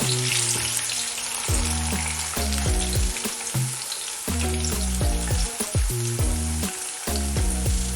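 Onions sizzling as they fry and brown in palm oil in a pot, a steady crackling hiss, with background music underneath.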